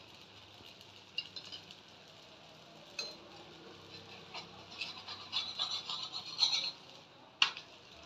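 Metal spatula scraping and tapping on an iron tawa while working under a frying malpua, in scattered short strokes that bunch together in the second half, with one sharp clink about seven seconds in.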